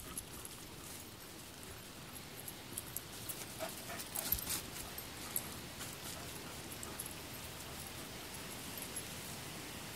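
Irish wolfhound puppy making a few short, faint sounds about four seconds in, over a steady outdoor hiss.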